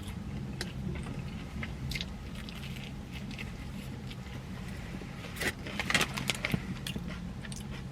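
Food packaging being handled: crinkling and light clicks, busiest between about five and a half and six and a half seconds in, over a steady low hum.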